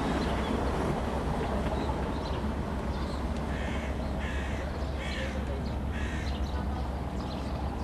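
A crow cawing four times in a row, a little under a second apart, from about halfway in, over a steady low rumble.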